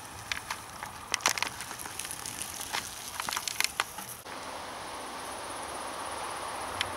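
Dry twigs and leaf litter crackling and snapping in quick irregular clicks, as from footsteps or handling on the forest floor. After an abrupt change about four seconds in, a steady high chirring of insects takes over.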